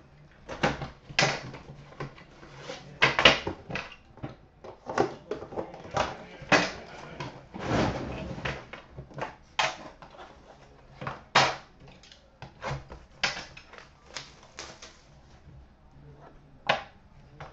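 Packaging of a hockey card box being handled: a cardboard outer box taken off a metal tin, with irregular clicks, knocks and scrapes as the tin is set down and its lid opened. There is one longer rustling scrape about eight seconds in.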